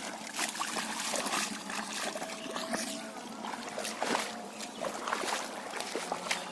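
Water dripping and splashing from a heavy, mud-laden cast net as it is hauled out of a shallow pond, with scattered splashes and squelches of feet wading through water and mud.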